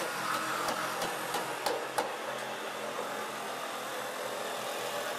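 Steady mechanical hum of tools running in a workshop space, with a few sharp knocks of work on wood and metal in the first two seconds.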